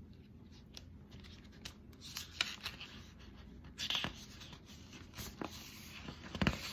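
Soft scattered rustles and taps close to the microphone, typical of a recording device or clothing being handled. Sharper clicks come about two and a half, four and six and a half seconds in.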